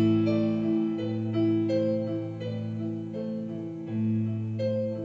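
Instrumental song passage with no singing: keyboard notes struck about every half second over sustained low bass notes.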